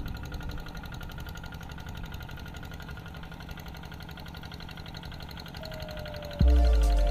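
Tractor engine running steadily, with a fast, even firing rhythm. Loud music comes in about six and a half seconds in.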